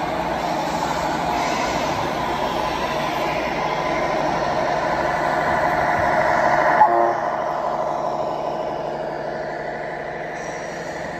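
Electronic sound module of a radio-controlled model truck sounding a long, steady multi-tone air horn as the truck drives past. The horn cuts off about seven seconds in, leaving a fainter engine sound.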